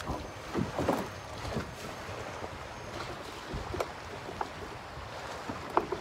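Water lapping and slapping against the hull of an anchored small boat, with irregular knocks and splashes over a steady low rumble.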